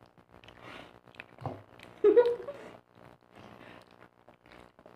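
Children chewing mouthfuls of banana, with faint wet mouth noises throughout and a short muffled vocal sound through a full mouth about two seconds in.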